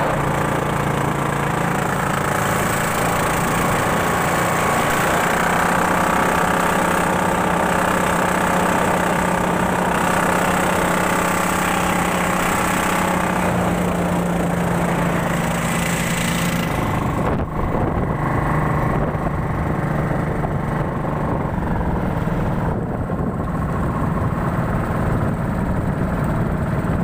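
Small motorized outrigger boat (bangka) engine running steadily under way, with a constant hum. About two-thirds of the way through, the high hiss over it drops away while the engine keeps running.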